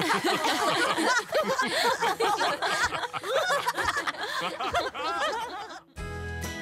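Several cartoon characters laughing together, their voices overlapping. Near the end the laughter stops and bright outro music starts.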